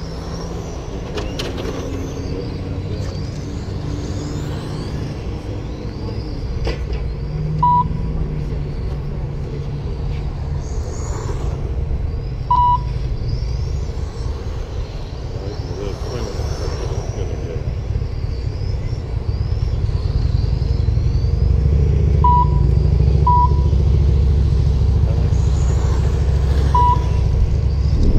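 Electric 1/10-scale RC touring cars racing, their motors whining and rising and falling in pitch as they pass. Short beeps from the lap-timing system sound about five times. Under both runs a low rumble that grows louder near the end.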